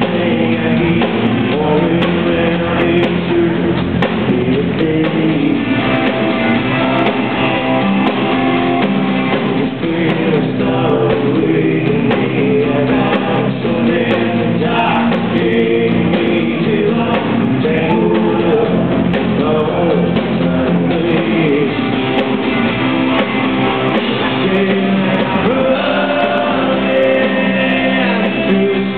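Live country-rock band performance: a male lead singer sings over acoustic guitar, electric guitar and band, with the reverberation of a large hall.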